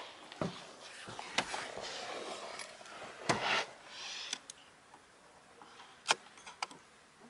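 Plastic clicks and rattles of a Volkswagen Scirocco's dashboard air vent being worked by hand, its slats moved about, among rustling handling noise. The clicks come singly and irregularly, and the sharpest falls near the end.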